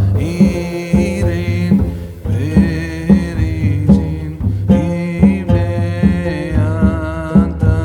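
Background music with a steady beat and a sung or melodic line.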